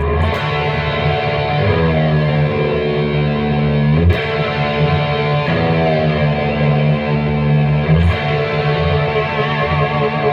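Epiphone ES-339 semi-hollow electric guitar played through distortion and effects, with long sustained, bending notes struck hard about every four seconds and feedback holding the notes on.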